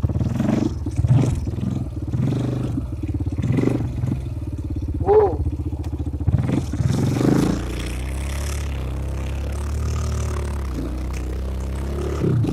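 ATV engine revving in a series of throttle surges, then running steadily for the last few seconds.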